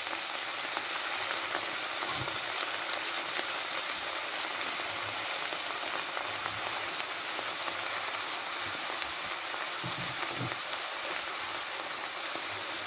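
Chopped vegetables sizzling in a frying pan with a little water: a steady, even hiss with a faint crackle.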